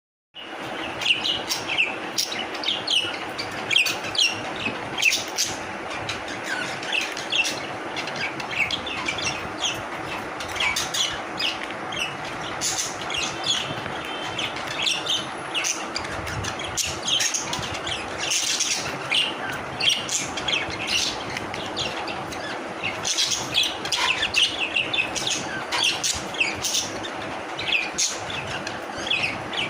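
Pet budgerigars chirping and chattering nonstop in quick, overlapping squawks and tweets, over a steady low hum.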